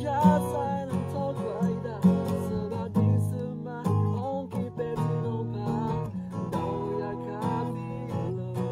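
Acoustic guitar strummed steadily in a slow song, with a voice singing along.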